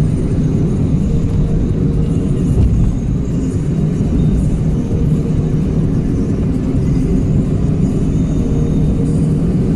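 Steady low rumble of a vehicle on the move at city speed, engine and road noise with a low even hum through it.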